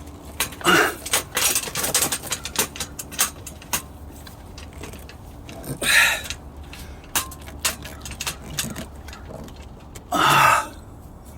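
Quick clicks and small metallic rattles of hands and tools working a hose and hose clamp onto a pump fitting, busiest in the first few seconds, with two louder short bursts of noise, one about six seconds in and one near the end.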